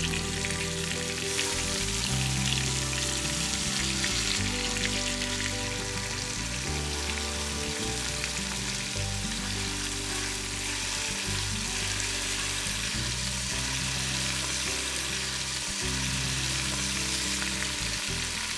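Country-style beef ribs sizzling steadily as they sear in hot oil in a Ninja Foodi pot, turned now and then with metal tongs.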